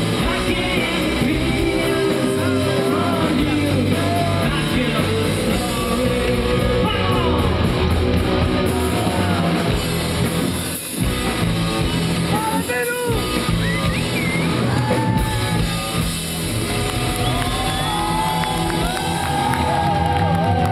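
Live rock band playing, with a singer's voice over the music. The music drops away briefly about halfway through.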